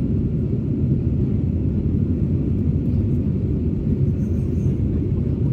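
Steady low rumble of an Airbus A321-231's IAE V2500 turbofan engines and rushing airflow heard inside the passenger cabin as the airliner climbs after takeoff.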